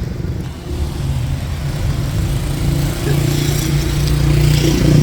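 Street traffic: a motor vehicle's engine running close by, growing louder from about the middle on, over a steady hum of road noise.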